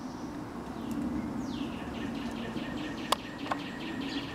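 A songbird singing a rapid trill: a high downslurred note, then a quick run of repeated notes, about six a second. Under it runs a steady low rushing noise, and two sharp clicks come about three seconds in.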